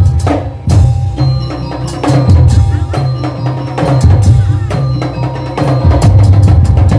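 Madurese musik daul (tong-tong) percussion ensemble playing loudly: deep drum beats under rapid wooden strikes in a driving rhythm, with a few melodic tones over the top.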